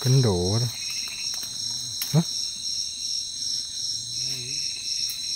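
Chorus of night insects trilling steadily at several high pitches, one of them pulsing quickly.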